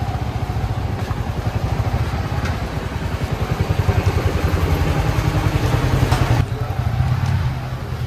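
Motorcycle engine running close by, a steady rapid low putter of firing pulses.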